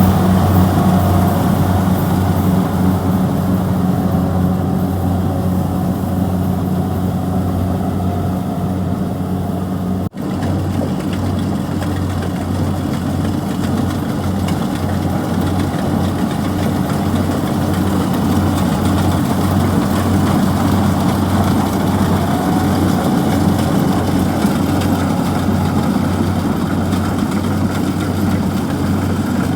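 Kubota DC-70G rice combine harvester's diesel engine running steadily with a deep, even hum. The sound drops out for a split second about ten seconds in.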